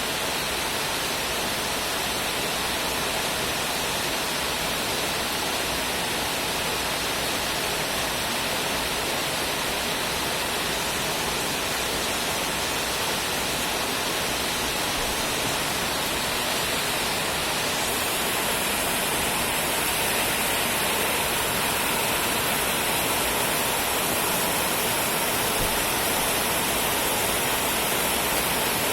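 Steady, continuous rainfall: an even hiss of rain with no breaks, growing slightly brighter and louder a little past halfway.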